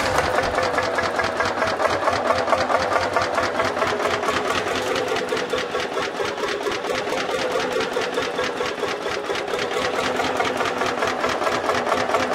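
Société Française Vierzon tractor's single-cylinder two-stroke hot-bulb engine running, with an even, rapid beat of about six firings a second.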